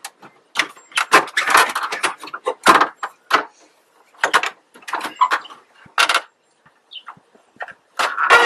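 Irregular clunks, clicks and scraping rattles from the parking brake and column shift lever of a 2004 Chevrolet Suburban being worked by hand, in a dozen or so short bursts with a couple of brief pauses.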